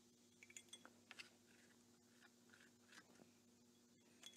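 Near silence with a few faint ticks and scrapes from a small stick working epoxy into the hosel of a golf wedge head, clustered about a second in and again about three seconds in.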